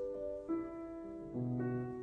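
Solo grand piano playing a quiet classical passage: single notes and a low chord struck one after another, each left to ring.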